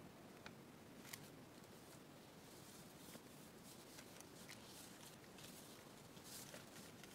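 Near silence with a few faint, scattered rustles and taps of a torn-out book page being handled and laid onto a paper-bag cover.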